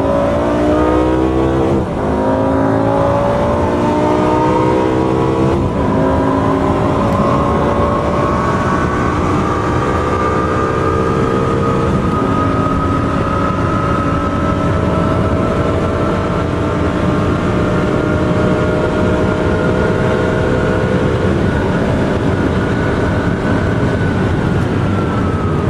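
Lamborghini Gallardo's V10, fitted with a Tubi exhaust, at full throttle, heard from inside the cabin: the engine note climbs through the gears, with four quick E-gear upshifts that come further and further apart. Near the end the note falls as the throttle is lifted.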